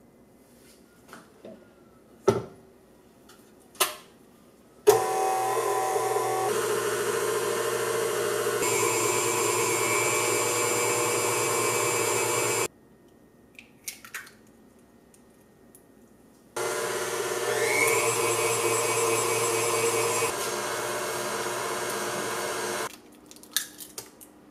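Tilt-head stand mixer with a wire whisk running in a metal bowl, in two runs of several seconds each, its motor speed stepping up partway through each run. A couple of sharp knocks come before the first run, as the mixer head is lowered and locked.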